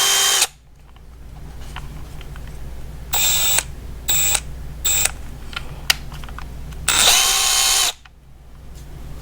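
Milwaukee M12 FUEL 3/8" right angle impact wrench spinning free with no socket on its mode 3 setting, its motor whining. A run stops about half a second in, three short trigger pulls follow around three to five seconds in, and a run of about a second comes near the end.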